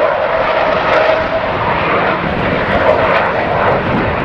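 Avro Vulcan bomber's four Rolls-Royce Olympus jet engines passing overhead: a loud, steady jet rush with a held tone in it that fades out over the first second or two.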